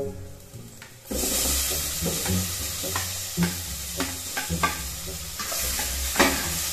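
Sliced tomatoes hitting hot oil with sautéing garlic and onion in a stainless steel pot: a sizzle that starts suddenly about a second in and keeps going, with a metal utensil knocking and scraping against the pot several times as they are stirred in.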